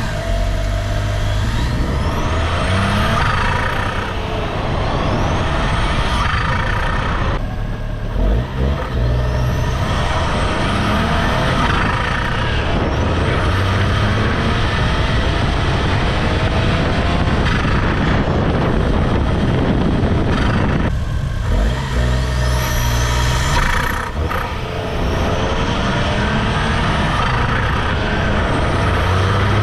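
1993 Suzuki Cappuccino's small turbocharged three-cylinder engine, breathing through an HKS pod filter with the factory recirculation valve removed, pulling the car along under acceleration. The pitch climbs and falls several times as it runs up through the gears, with short breaks at the shifts.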